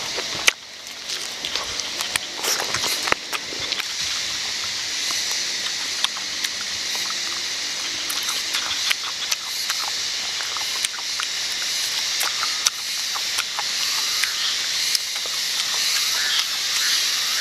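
Close, wet chewing and tearing sounds of a woman eating grilled chicken with her hands, many short clicks and smacks. Behind them is a steady high chorus of frogs and insects that slowly grows louder.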